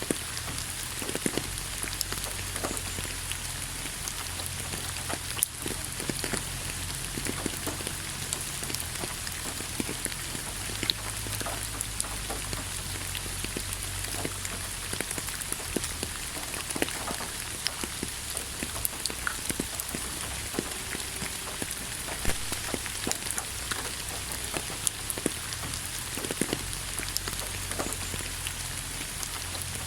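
Steady rain falling, an even hiss dotted with frequent sharp drop impacts, over a low rumble.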